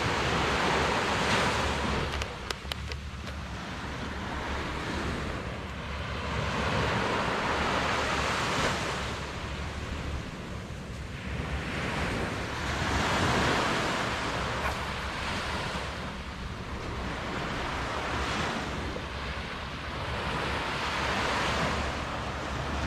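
Small waves breaking and washing up a sandy beach, the surf noise swelling and fading every few seconds.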